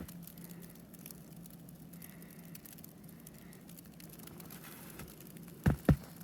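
Two footsteps crunching in snow close together near the end, after a lull with only a faint steady low hum.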